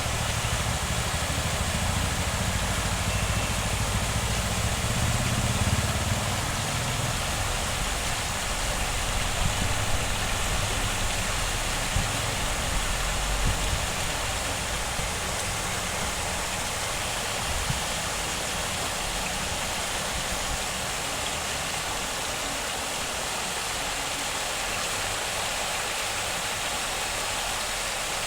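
Steady rushing of running water, like a stream or waterfall, with an uneven low rumble over the first half that fades after about halfway.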